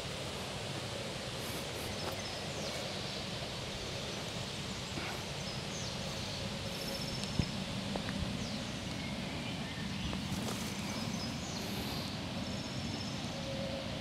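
Outdoor ambience: a steady rush of noise with short, high bird chirps scattered through it, and one sharp click about seven seconds in.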